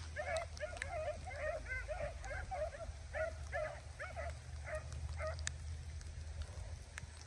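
Hunting dogs barking repeatedly, about three short barks a second, stopping about five seconds in, over a low steady rumble.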